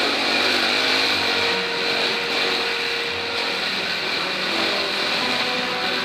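Dirt bike engine running at a steady pace while riding a rutted dirt track, heard from a camera mounted on the bike, under a steady rushing noise.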